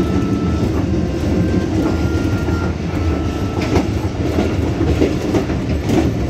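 Passenger train running along the track, heard from on board: a steady rumble of wheels on rails with several sharp clacks over the rail joints.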